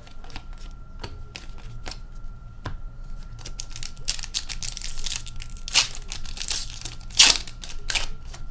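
Light clicks of trading cards being handled, then a foil hockey-card pack wrapper crinkling and tearing open from about four seconds in, the loudest rip near the end.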